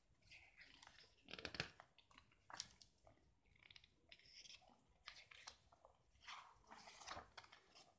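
Faint rustling and crackling of comic-book pages being turned and handled by hand, several times over.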